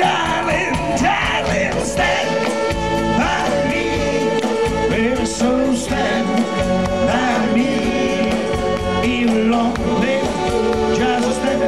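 Live rock and roll band playing a slow song, several men singing together into microphones over acoustic guitar, electric bass and drums.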